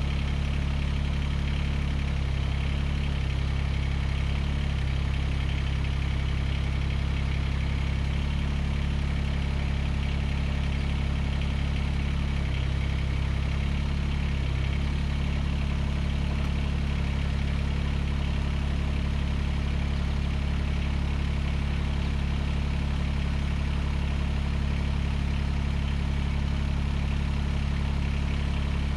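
Diesel engine of a Mahindra eMax 20S compact tractor running steadily at a constant speed, with a low, even drone.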